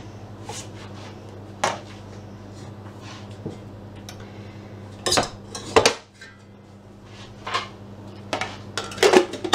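Stainless steel bowl and fittings of a Bosch stand mixer clinking and knocking as the bowl is set in place and the mixer head is lowered, several sharp knocks with the loudest two about five and six seconds in. A steady low hum runs underneath.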